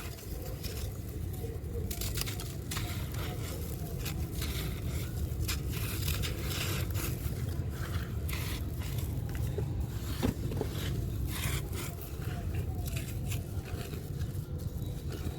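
A crunchy, dusty yellow block being crumbled, with dense, irregular crunching and crackling.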